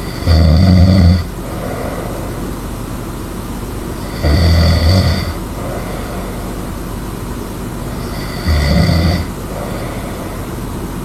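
A person snoring loudly in a slow, even rhythm: three snores, each lasting about a second and spaced about four seconds apart, each followed by a softer breath, over a steady low hum.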